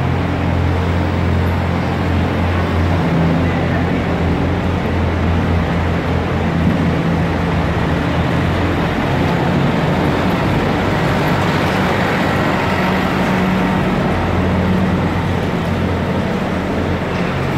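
Engine running steadily with an even low drone that holds at one pitch and level throughout.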